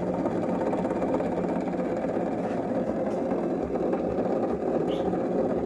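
Westinghouse 1 hp three-phase double-end grinder coasting after being switched off, its two grinding wheels still spinning with a steady, even hum. The long run-down is what the owner takes as a sign of how good the unit is.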